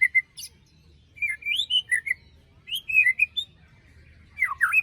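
White-rumped shama (murai batu) singing: three short phrases of sharp, swooping whistled notes about a second and a half apart, the last one dipping lower.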